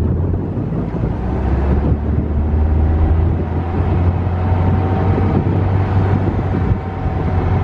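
Dune buggy engine running steadily as it drives along, with wind rushing over the microphone.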